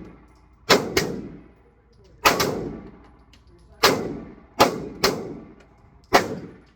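Smith & Wesson M&P full-size 9mm pistol firing about seven shots at an uneven pace, some in quick pairs and some a second or more apart. Each report trails off in a short echo.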